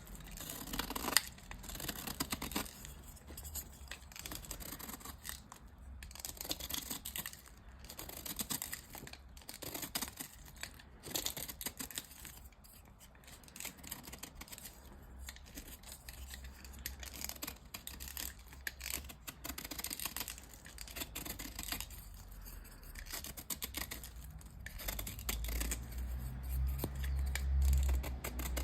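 Dyed gym chalk being crushed and crumbled, with dense crisp crunching and powdery crackling in irregular bursts that grow louder near the end.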